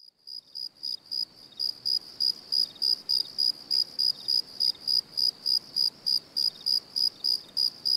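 Cricket chirping steadily, about three to four evenly spaced high-pitched chirps a second, fading in from silence over the first second or so.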